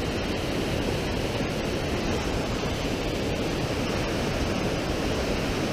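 Mountain creek running high, white water rushing and cascading over boulders in a steady, unbroken rush.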